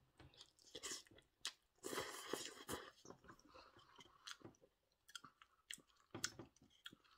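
A person chewing a mouthful of instant noodles, faint, with scattered small clicks and soft wet mouth sounds.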